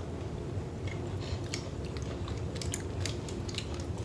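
Chewing and biting on a small fruit candy: scattered short, sharp mouth clicks over a steady low hum.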